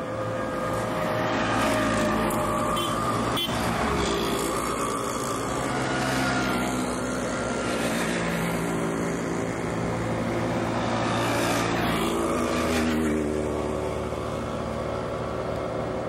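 Motor vehicle engines running steadily, swelling and falling in pitch as vehicles pass.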